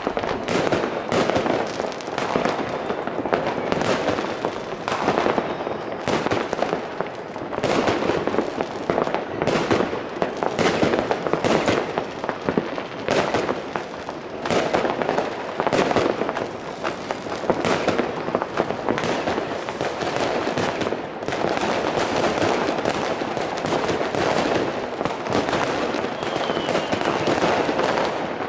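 Fireworks and firecrackers going off without pause: many bangs and crackles overlapping in rapid succession. A faint whistle of a rocket is heard near the end.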